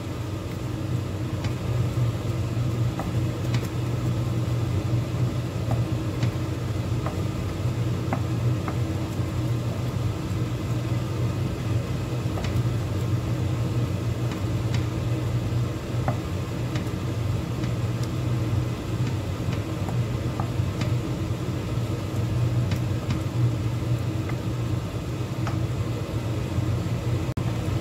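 Steady low rumble under the faint sizzle of a blended chili and onion paste frying in oil in a pot. Occasional light taps and scrapes come from a wooden spatula stirring it.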